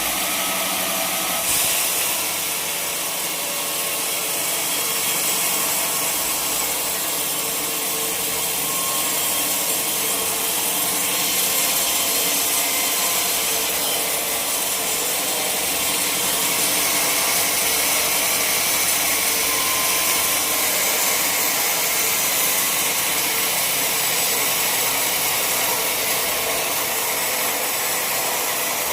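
Sawmill saw cutting steadily through a log of wood.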